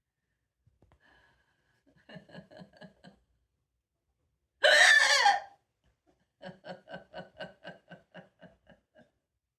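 A person laughing in short rhythmic bursts, with one loud, high outburst about halfway through, followed by a longer run of laughs that slows and fades.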